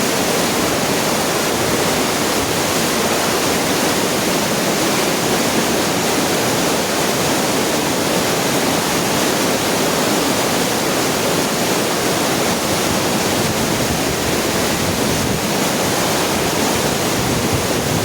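Swollen, flooding mountain river rushing, a steady and very loud sound of fast water.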